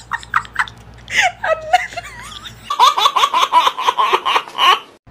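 A woman laughing in short bursts. About two and a half seconds in, this gives way to a baby's rapid, rhythmic belly laughter, which cuts off just before the end.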